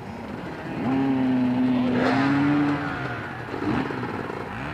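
Off-road motorcycle engines running on a hare scramble start line; about a second in, one bike is revved and held at a steady pitch for around two seconds, then drops back to idle.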